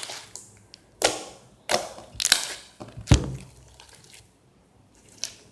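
Hands kneading and squishing a lumpy clay slime, giving a few sharp crackling squelches and pops over the first three seconds, the loudest about three seconds in, then fainter small clicks. The slime is being worked until its lumps smooth out.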